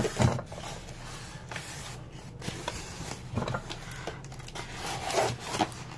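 Small knife blade scraping and slicing along packing tape on a styrofoam case, with a few slightly louder strokes.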